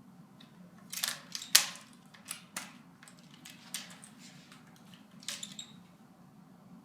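A series of irregular sharp clicks and clacks of hard objects, the loudest about one and a half seconds in, over a low steady hum.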